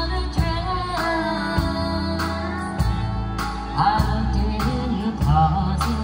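Live country band playing with a woman singing lead, over a steady drumbeat, with guitars, pedal steel and fiddle behind her.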